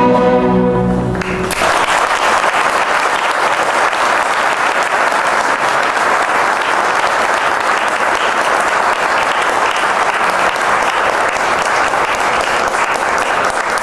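A chamber orchestra holds the last chord of a guarania and cuts it off about a second in. The theatre audience then breaks into steady applause.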